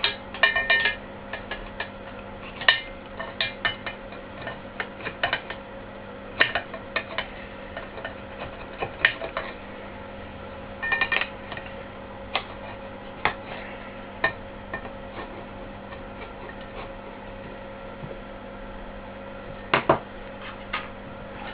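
Irregular clicks and clinks of small hard tools and parts being handled on a workbench, over a steady electrical hum.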